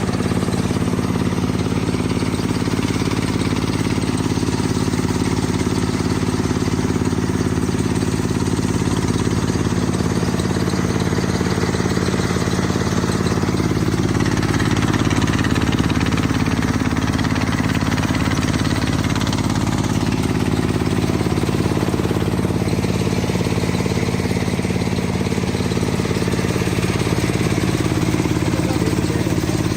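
Engine of a small self-propelled rice harvester running steadily at a constant speed.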